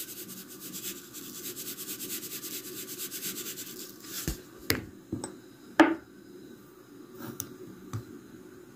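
Salt being shaken out of a container onto onion halves in a ceramic bowl: a fast, scratchy rattle for about four seconds. After it come several sharp clicks and knocks, the loudest about six seconds in.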